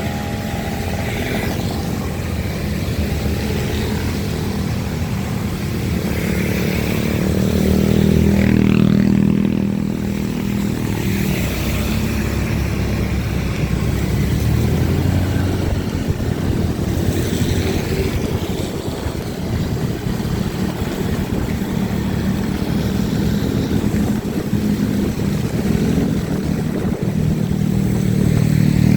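Motorcycle engine running on a ride along a wet road, getting louder about a third of the way in and again near the end as it speeds up. A steady hiss of rain and wet tyres runs under it.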